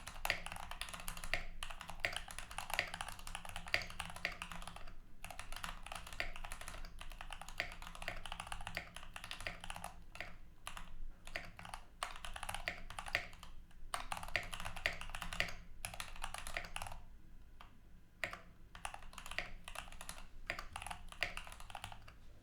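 Keychron K8 Pro mechanical keyboard with stock, unlubed Gateron G Pro Brown tactile switches being typed on quickly: a fast, steady clatter of keystrokes, with brief pauses about five seconds in and again around seventeen seconds in.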